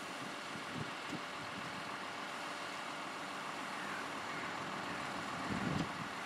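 John Deere tractor's diesel engine running steadily while its Hi-Spec slurry tanker is coupled to a fill hose. There are a couple of low thumps near the end.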